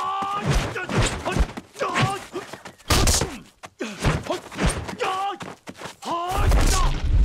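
Kung fu fight sound effects: the fighters' short shouts and grunts between sharp punch and kick hits, with a heavier, longer thud near the end.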